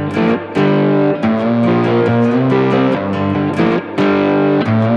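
Background music: electric guitar rock with distortion and bass, played with a steady rhythm over a time-lapse.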